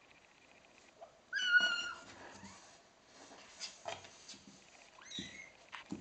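Kitten mewing: one loud, high meow about a second in, and a shorter rising meow near the end, with soft rustling and scratching in the box between.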